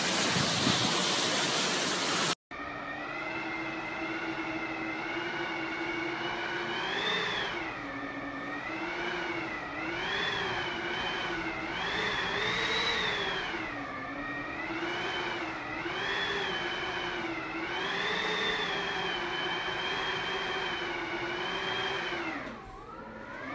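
Hurricane wind whistling through the gaps around a closed door: a steady, eerie tone with overtones that rises and falls with each gust and dips in pitch near the end. Before it, about two seconds of loud rushing wind and rain, cut off abruptly.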